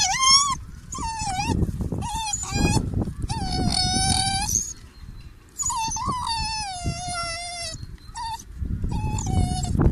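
A dog giving a series of about seven high-pitched howling whines, two of them long and sliding slowly down in pitch, the rest short.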